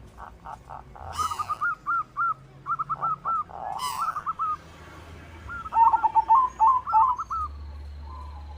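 Zebra doves (perkutut) cooing: quick series of short rising-and-falling notes in repeated bursts, with a second, lower series overlapping from about six seconds in. Two brief rustling noises come at about one and four seconds.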